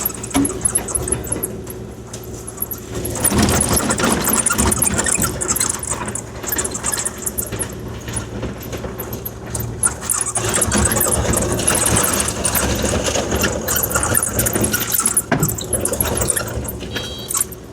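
Kubota KX040-4 mini excavator's diesel engine running steadily while its bucket scrapes and drags gravel, with louder gritty spells starting about three seconds in and again about ten seconds in.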